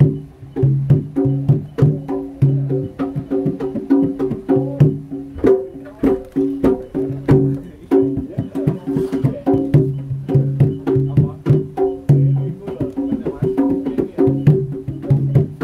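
Javanese jaranan gamelan music: quick drum and percussion strokes over repeating tuned gong-chime notes in a steady rhythm.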